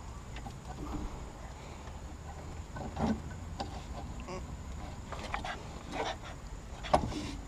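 Scattered metal knocks and clinks as a pry bar and a new sway bar end link are worked against a truck's sway bar, with the sharpest knock near the end.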